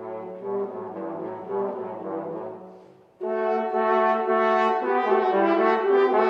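Alto trombone and French horn playing a classical concerto duet. A softer passage fades out about three seconds in, then both come in with a loud, bright run of sustained notes.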